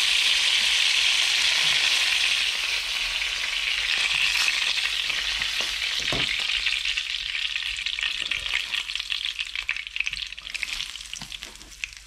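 Hot oil sizzling in a frying pan as skin-on garfish pieces, dusted in seasoned flour, shallow-fry. The steady sizzle thins out in the second half into scattered crackles and pops.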